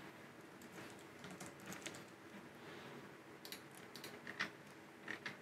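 Faint keystrokes on a computer keyboard: scattered light clicks, with a few sharper taps in the second half.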